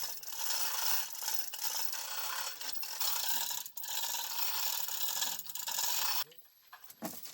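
Rough, continuous scraping or rubbing, broken by short irregular dips, that stops abruptly about six seconds in, followed by a few faint clicks.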